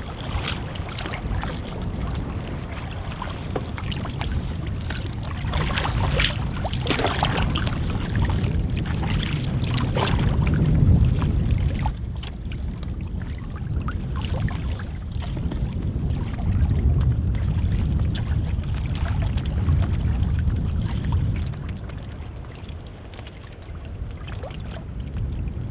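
Wind buffeting the microphone over a choppy lake, with water slapping and splashing against a canoe hull; a cluster of sharper splashes comes around the middle.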